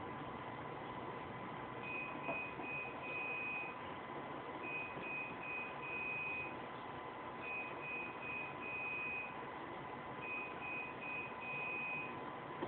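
High electronic beeps in a repeating pattern of three short beeps and one longer beep, sounding four times about every three seconds, over a steady hiss with a faint constant hum.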